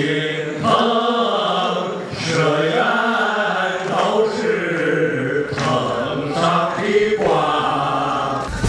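A group of men singing together through microphones, holding long drawn-out notes in a loose, chant-like sing-along.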